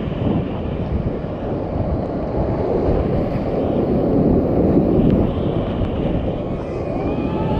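Loud, steady rush of whitewater as a creek kayak runs a steep boulder rapid, heard from the paddler's seat.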